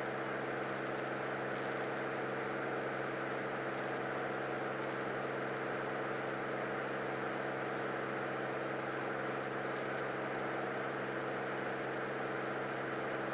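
Steady drone of a Cirrus SR22's six-cylinder piston engine and propeller in flight, heard through the headset intercom: an even hum with a hiss over it, unchanging throughout.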